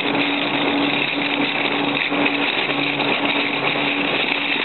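Machinery running steadily, with a hiss and a low hum that breaks off briefly about once a second.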